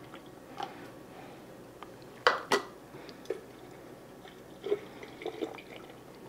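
Half-and-half yogurt mixture trickling through a funnel into a glass mason jar, a faint thin pour with drips. Two sharp clicks just over two seconds in are the loudest sounds, with a few lighter ticks later.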